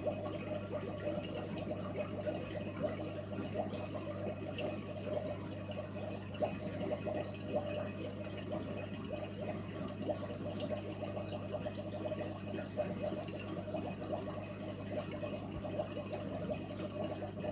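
Small aquarium sponge filter running: water bubbling and trickling over a steady low hum.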